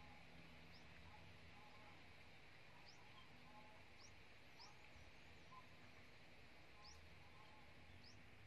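Near silence: faint outdoor ambience with a steady high hiss and several short, high rising bird chirps scattered through it.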